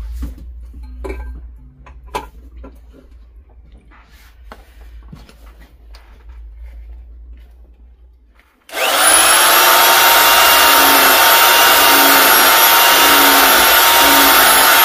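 A few quiet knocks and clicks of handling, then, about nine seconds in, the Evolution 400 W power file (a narrow belt file sander) starts suddenly and runs at full speed with a steady high whine and a regular pulsing underneath as its belt grinds into a piece of hardwood.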